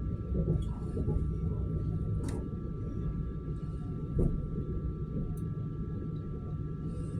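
Electric commuter train running between stations, heard from inside the car: a steady low rumble with a faint steady whine, and two sharp knocks of the wheels on the rails, a couple of seconds apart.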